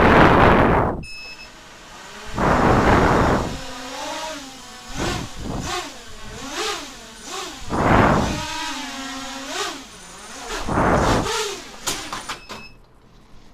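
Cobra 2204 1960kv brushless motor on a DYS 20A SimonK ESC being throttled up and down. Its whine wavers in pitch, broken by four harsh surges of noise, the stutter of the motor losing sync with the ESC.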